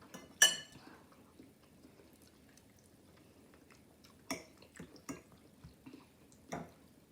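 Cutlery clinking against a dinner plate during a meal: one sharp ringing clink about half a second in, then a few softer clicks of fork on plate near the end.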